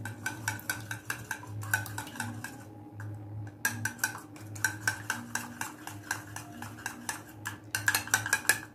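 Steel spoon beating a raw egg in a small ceramic bowl: rapid clinking of the spoon against the bowl, with a brief pause about three seconds in.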